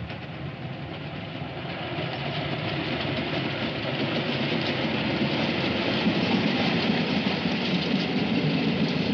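Steam-hauled freight train running along the line, a continuous rumble and rattle of locomotive and wagons that grows steadily louder.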